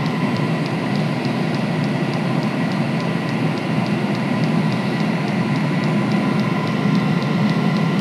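Diesel air heater running at full power on a self-sustaining burn: a steady rush of combustion and blower fan, with the fuel dosing pump ticking about four times a second.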